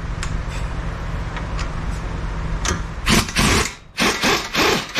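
Pneumatic impact wrench hammering on a 21 mm nut in several short bursts, starting about three seconds in with brief pauses between trigger pulls. The stud is starting to spin with the nut instead of the nut breaking loose.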